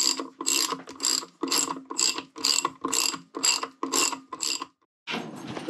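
Hand ratchet wrench clicking in repeated back-and-forth strokes, about two a second, as a fastener on a motorcycle front wheel hub is run down. The clicking stops near the end, and a steady hiss of different background noise follows.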